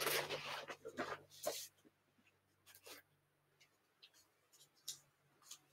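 Paper rustling and scraping as a sheet and small paper picture cutouts are handled, for the first second and a half or so, then a few faint clicks.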